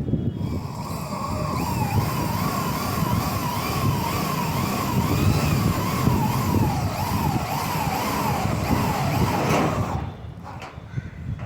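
A siren wailing up and down in pitch, about one and a half swings a second, over a steady low rumble, and cutting out about ten seconds in.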